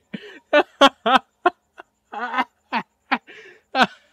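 A man laughing hard, like a donkey: a run of short loud whoops broken by wheezy, breathy gasps.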